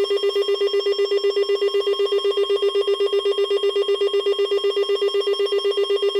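Weather alert radio's alarm sounding for an incoming alert: a loud buzzing tone pulsing rapidly, about ten pulses a second, held steady throughout.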